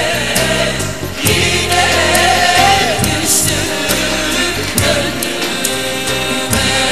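Turkish folk song (türkü) sung by a woman over instrumental accompaniment, the sung melody winding over a steady rhythmic backing.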